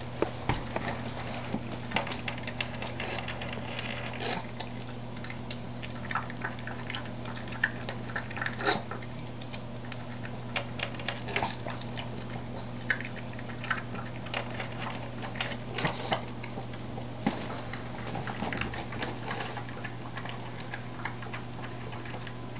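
Pug eating from a plastic food bowl: chewing and smacking in irregular short clicks, over a steady low hum.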